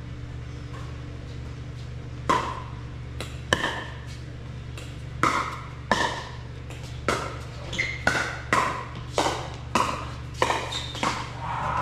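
Pickleball rally: sharp pops of paddles hitting a plastic pickleball, starting about two seconds in and quickening to roughly one hit every half second near the end, over a steady low hum.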